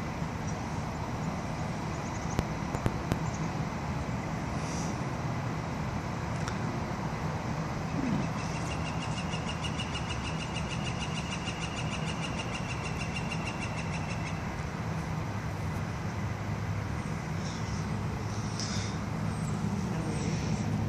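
Steady hum of distant road traffic, with an unidentified animal's rapid trill starting about eight seconds in and lasting about six seconds, and a few short high chirps near the end.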